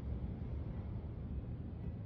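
Strong thunderstorm wind gusts blowing, a steady low rush of noise.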